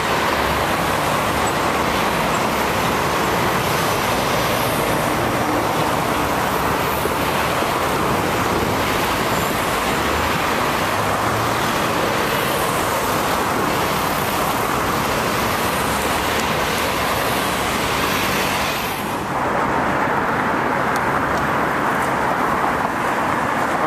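Steady city road traffic: cars, vans and a truck passing, with tyres hissing on a wet road. About 19 seconds in it cuts to a duller, quieter steady outdoor noise.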